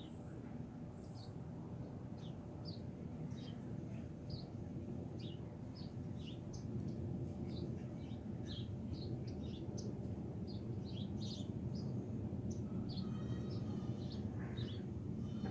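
Distant jet airliner high overhead: a low, steady rumble that slowly grows louder. Small birds chirp over it in quick, short calls.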